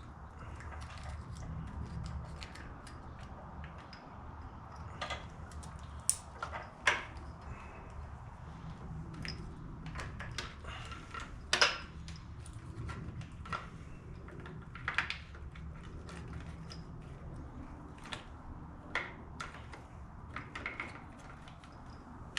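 Scattered light clicks and knocks of hands handling a motorcycle wiring harness and plugging in its plastic connectors, with a few sharper snaps, over a steady low hum.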